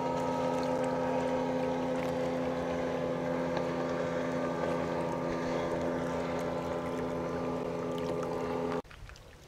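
Outboard motor on a small aluminium fishing boat running at a steady high speed with the boat on plane, its pitch holding steady; it cuts off suddenly about a second before the end.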